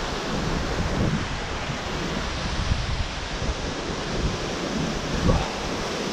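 Mountain stream rushing steadily over small waterfalls into rock pools, mixed with wind buffeting the microphone. A short thump about five seconds in.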